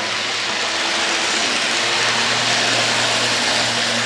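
Model train locomotive's Hobbytown of Boston motor and gear drive running steadily at full speed, its wheels rolling on the rails: a constant hum under an even hiss. It runs noisy, which the owner puts down to the Hobbytown of Boston drive and expects to ease as the motor runs in.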